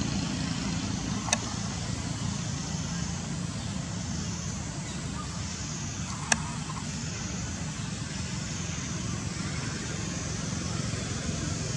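Steady outdoor background rumble and hiss, with two brief sharp clicks, one about a second in and one about six seconds in.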